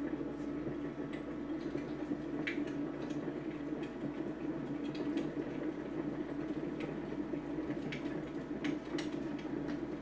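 Steady low hum in a room, with scattered faint clicks and ticks.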